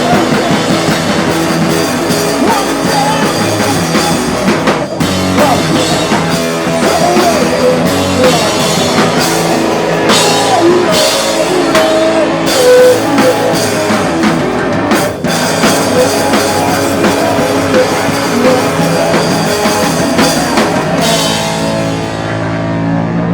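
Live rock band playing loud, distorted music: a drum kit with cymbal crashes over heavy electric guitar. Near the end the cymbals fall away and a low held note rings on.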